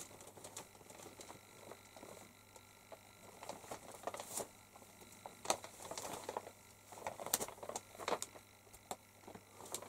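Quiet room with faint, scattered rustles and light taps, a few a second apart, from movement close to the microphone.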